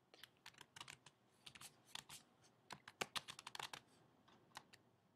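Faint typing on a computer keyboard: quick, irregular key clicks, with a short pause near the end.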